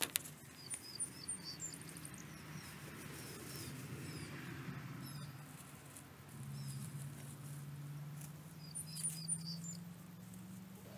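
Chukar partridges giving short, high squeaky chirps in a few quick clusters, over a low steady hum. A sharp click sounds right at the start.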